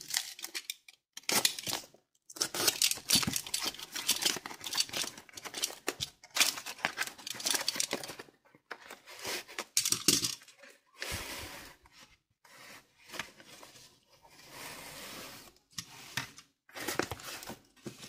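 A tape-wrapped cardboard box being cut and torn open with a utility knife: irregular scrapes, rips and crinkles of packing tape and cardboard. In the second half there are softer, steadier rubbing stretches as foam padding is pulled out of the box.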